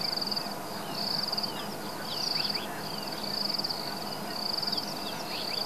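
An insect trilling in short, evenly spaced phrases, about one a second, over a faint steady background, with scattered faint short falling bird chirps.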